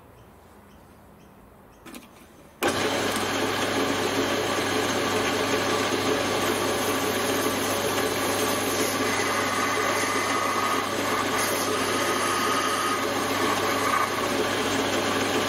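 Small bench metal lathe switched on about two and a half seconds in, starting abruptly, then running steadily with a low motor hum and gear whine while a cut is fed in by hand on the steel workpiece.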